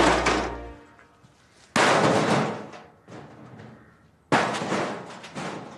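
Three heavy crashes of a long-handled hammer striking metal junk, roughly two and a half seconds apart, each ringing and dying away over about a second. The last low chord of a theme tune fades out in the first second.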